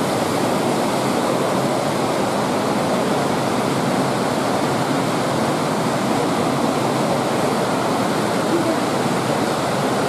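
Steady, even rush of running water, with no breaks or changes.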